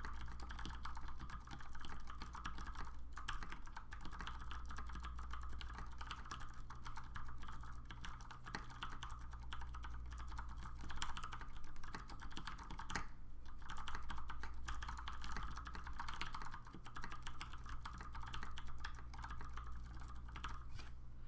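Continuous fast typing on an LZ Mini MX mechanical keyboard with Cherry MX Clear tactile switches on 65g springs, lubed with Krytox 205/105, under PBT dye-sub keycaps. There is a brief pause about thirteen seconds in, over a steady low hum.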